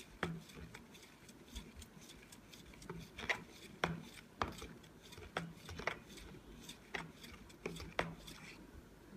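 Steel spoon stirring liquid handwash in a plastic cup, clicking against the cup's sides in short, irregular knocks about once or twice a second.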